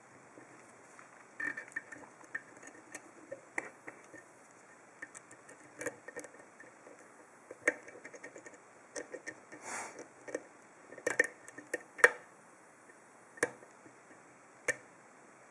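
A hook pick and tension wrench working the keyway of an old Abus 85/40 padlock with security pins: irregular small metallic clicks and taps, with a brief scrape about ten seconds in. The clicks grow louder in the second half.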